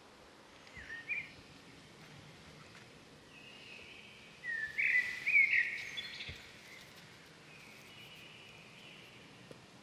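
Bird calls over a steady background hiss of open country: a short call about a second in, then a louder run of short sweeping calls around the middle.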